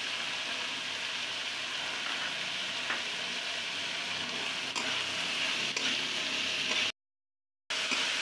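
Chopped onion, carrot and green beans sizzling steadily in hot oil in a kadai as they are stir-fried, with a few faint clicks of the spatula. The sound drops out completely for under a second near the end, then the sizzle resumes.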